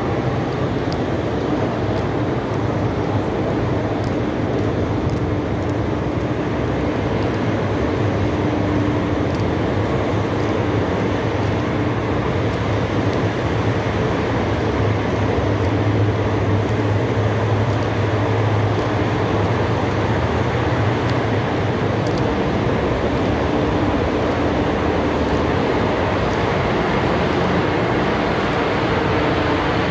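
Steady city traffic rumble with a low hum running under it.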